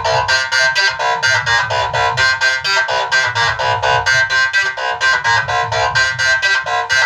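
Music: a keyboard or synthesizer melody over a fast, steady beat of about four to five strokes a second, with bass underneath.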